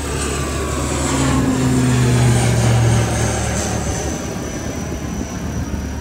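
Twin-turboprop airliner climbing out after take-off and passing overhead: a steady engine and propeller drone that is loudest about two to three seconds in, then fades, with a high whine sliding slowly down in pitch as it goes by.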